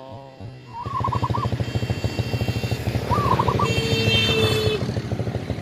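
Motorcycle engine running close by with a fast, even exhaust beat, starting about a second in. Two short warbling chirps sound above it.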